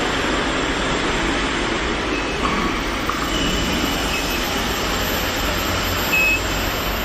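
Steady machinery noise with a low rumble and a faint high whine running through it, and a few brief faint beeps or squeaks on top.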